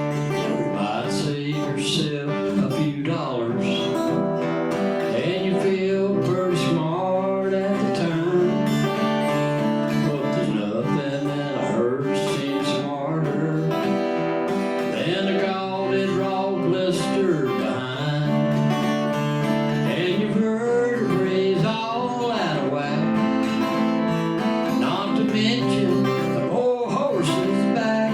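Country song played live on acoustic guitar, with a man singing over it.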